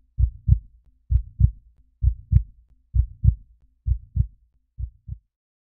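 Heartbeat sound effect: six double 'lub-dub' beats, about one a second, the last pair fainter, stopping about five seconds in.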